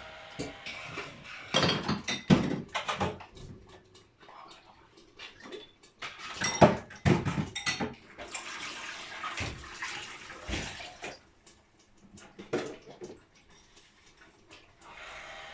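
Hard plastic toy parts being handled, giving irregular knocks and clatters in clusters about two seconds and seven seconds in.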